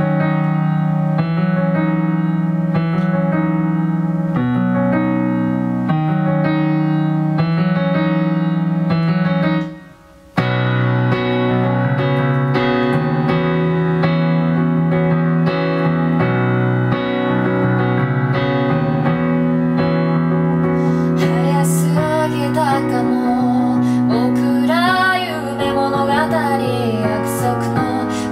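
Piano playing a chordal intro. It breaks off briefly about ten seconds in, then comes back fuller. About 21 seconds in, a woman's singing voice joins over the piano.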